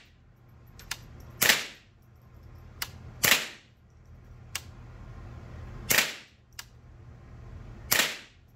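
Palmetto State Armory AR-15 firing .22LR through a .22 bolt: four single shots, about two seconds apart, each with a short echo. Fainter sharp clicks come between the shots, over a low steady hum.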